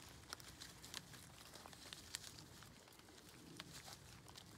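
Faint, irregular crackling and clicking of goats browsing, tearing and chewing leaves from a leafy branch held out by hand.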